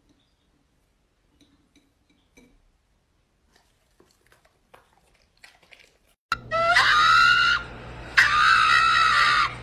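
Near silence with a few faint clicks, then about six seconds in a pug lets out two long, loud, harsh screams with a short break between them, and starts a third at the very end.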